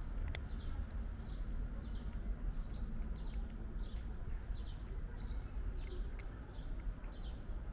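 A cat eating dry kibble, with a few sharp crunches. A small bird chirps steadily in the background, about three chirps every two seconds, over a steady low rumble.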